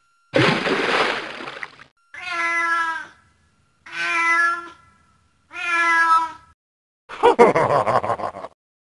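A rough, noisy burst, then three separate cat meows, each under a second long, steady in pitch. Near the end comes a second rough, rattling burst.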